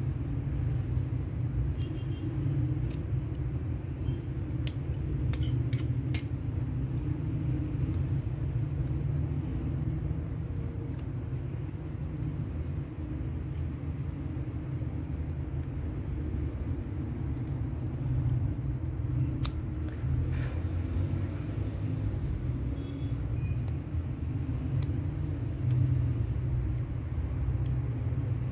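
A steady low rumble, with a few faint clicks and scrapes from a small carving knife cutting into a wooden figure, heard twice in small clusters.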